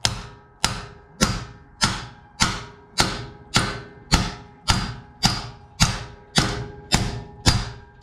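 Hammer blows driving a pilot bushing into the crankshaft of a Buick 430 big-block engine: a steady run of sharp strikes, a little under two a second, each with a short metallic ring.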